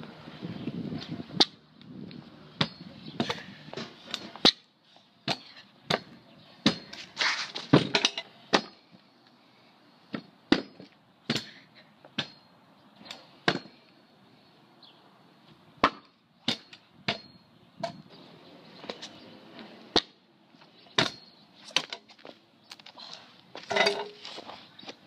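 Stunt scooter's wheels and deck knocking and clattering on a concrete driveway and a wooden box as a rider attempts tricks: a long string of sharp, irregular knocks, some in quick clusters, with faint rolling noise between them.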